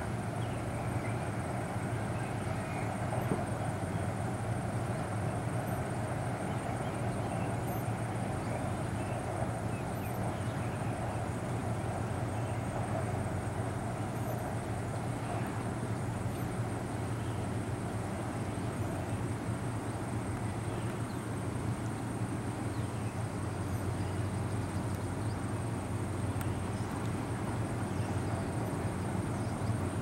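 Distant steady drone of an Alsthom diesel-electric locomotive hauling a passenger train slowly over a trestle bridge, with a thin high whine above it.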